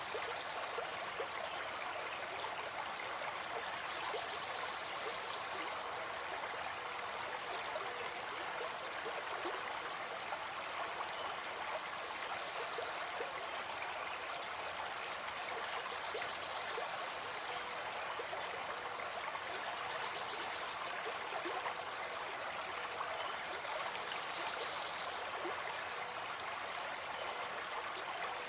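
Forest stream flowing steadily, an even rush of running water.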